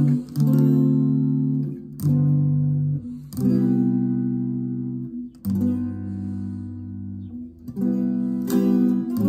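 Stratocaster-style electric guitar played solo in slow chords, each struck and left ringing for one to two seconds before the next. A quicker run of notes comes near the end.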